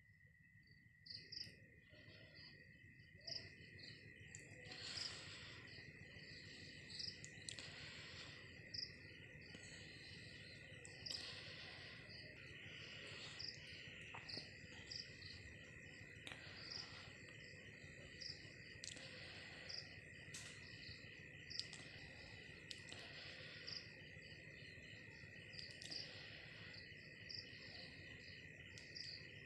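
Faint night insect chorus: crickets keep up a steady high trill, with short higher chirps repeating about once or twice a second and occasional soft clicks.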